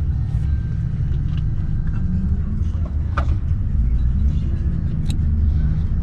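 Steady low rumble, with a few faint clicks and taps.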